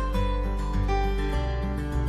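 Background music: short plucked notes over a held bass, the bass moving to a new note about one and a half seconds in.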